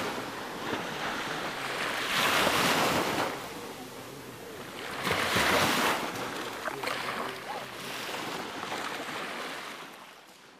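Small waves breaking on a sandy beach, the wash swelling and draining away in surges every few seconds, then fading out near the end.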